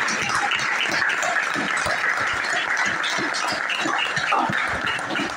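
Small group of people applauding: steady hand clapping.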